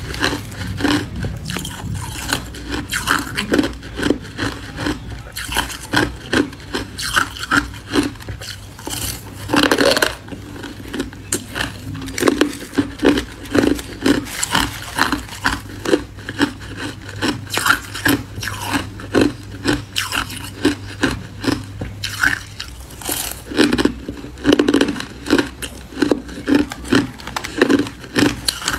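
Hard crushed ice being chewed close to a clip-on microphone: irregular crunches, several a second. A metal spoon scrapes and scoops through the ice in the bowl, one longer scrape about ten seconds in.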